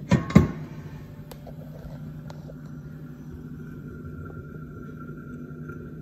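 Two sharp metal clunks as the AGA's burner door is opened, then the lit kerosene burner running with a steady low rumble. A faint high whine joins about two seconds in.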